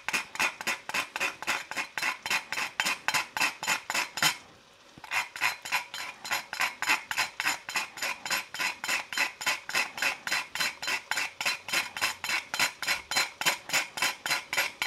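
Whole nutmeg being grated on a small metal nutmeg grater: quick, even rasping strokes, about four a second, with a short pause about four seconds in.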